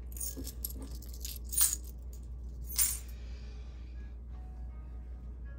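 Small charms and trinkets clinking and rattling against a hard tabletop as they are gathered up by hand, in a quick run of clinks with two louder ones about one and a half and three seconds in.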